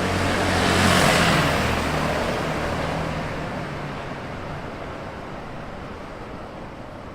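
City street traffic: a motor vehicle passes close by, loudest about a second in, then fades away as the street noise settles.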